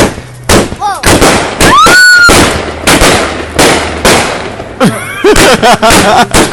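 Consumer fireworks going off in a rapid, irregular string of bangs, several a second, with whistling fireworks gliding up and down in pitch between them; one loud rising whistle about two seconds in.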